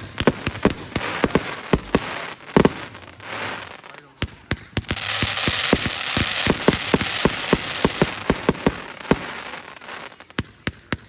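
Flamingo firework going off: rapid sharp crackling pops throughout, a louder bang about two and a half seconds in, and a steady hiss under the crackle from about five to nine seconds.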